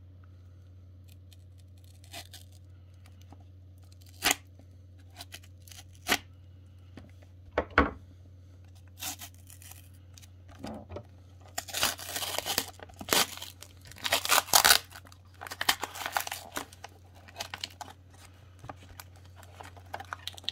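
Paper wrapping and clear tape on a small parcel being torn open by hand. A few scattered crinkles and crackles come first, then a run of loud ripping tears a little past halfway through.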